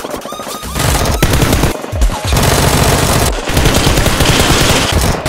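Rapid automatic gunfire sound effects, long bursts of shots over background music.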